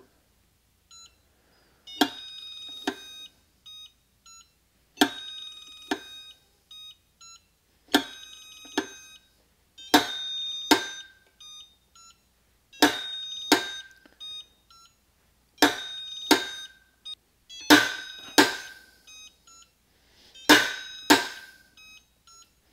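Duralast click-type torque wrench breaking over on a CDI digital torque tester, eight pulls in all. Each pull gives a pair of sharp clicks a little under a second apart, with the tester beeping between them.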